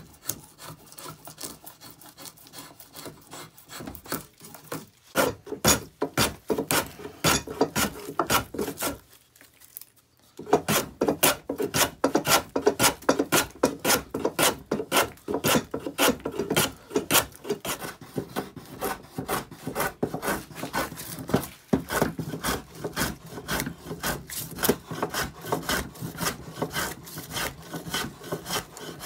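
Steel hand file drawn back and forth across the willow graft block on a cricket bat's toe, shaping it in quick repeated rasping strokes, with a pause of about a second some nine seconds in.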